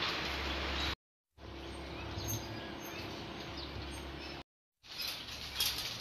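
Outdoor ambience: a steady rushing background noise with a few faint bird chirps. It drops out to silence twice, at edits.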